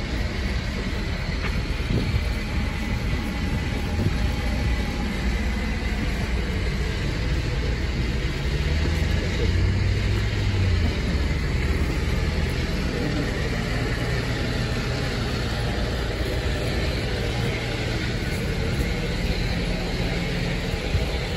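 City street traffic: passing and idling cars as a steady noise, with a vehicle engine's low hum loudest about nine to eleven seconds in.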